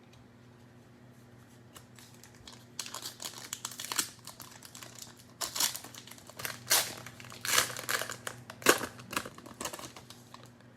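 Cellophane wrapper of a trading-card cello pack crinkling and tearing as it is opened by hand, in irregular crackly bursts that start about three seconds in.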